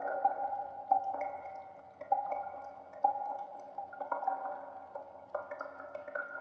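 Water drops falling one at a time into pools in a cave, each drop a sharp plink with a pitched, echoing ring that fades, about ten of them at an uneven pace.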